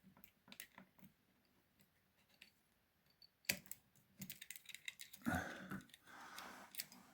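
Faint metal clicks and taps from handling a lever mortice lock and its pick wires and tension tool, with a sharper click about three and a half seconds in, a quick run of clicks after it, and rougher handling noise near the end.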